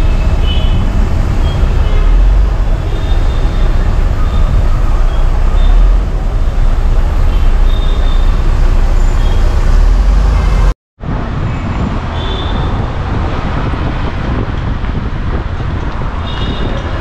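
City street traffic heard from inside a moving car: a steady low rumble of road and engine noise, with short car-horn toots here and there. The sound cuts out for a moment about eleven seconds in and comes back a little quieter.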